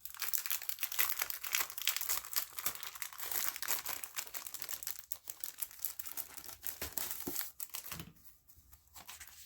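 Crinkling and rustling of a wrapped pack of craft paper being handled and unwrapped, dying down about eight seconds in.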